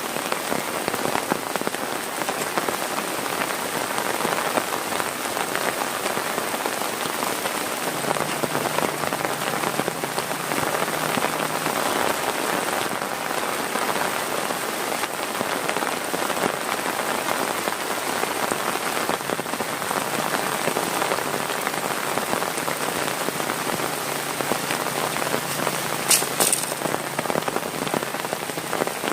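Heavy rain falling, a dense, steady patter of drops. Near the end, a couple of sharp clicks stand out briefly.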